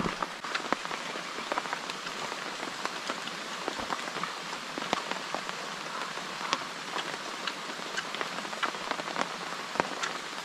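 Steady rain falling: a constant hiss with many sharp drop hits at irregular intervals.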